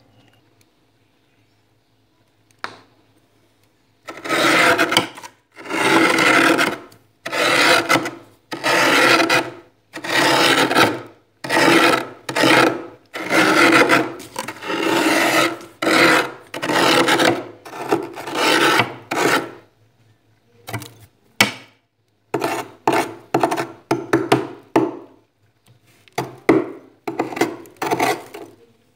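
Metal spoon scraping built-up frost off the inside wall of a freezer in a run of rasping strokes, about one a second. It begins after a few quiet seconds, breaks off briefly about two-thirds of the way through, and then goes on in shorter, quicker strokes.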